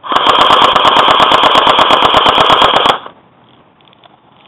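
An airsoft rifle firing one long full-auto burst, about a dozen shots a second for about three seconds, then stopping abruptly.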